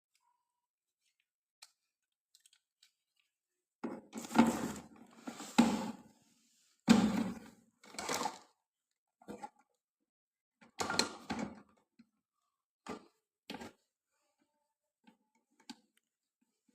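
A string of irregular knocks and clunks, hard objects being handled or struck. They start about four seconds in, come in two clusters, and trail off into a few faint ticks near the end.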